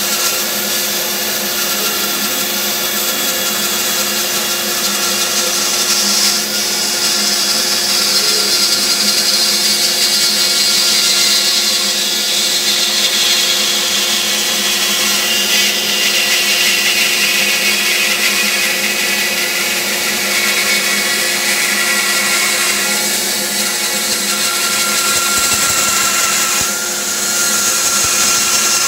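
Bandsaw running and cutting slowly through a thick wooden block: a steady motor hum under the blade's rasping cutting noise, which drifts lower in pitch through the middle and rises again near the end as the feed changes.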